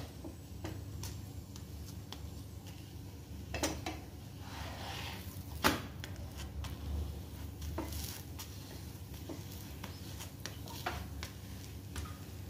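A flat spatula knocking and scraping now and then against a non-stick tawa as a paratha is pressed and moved on it, over a low steady hum. The sharpest knock comes a little past halfway.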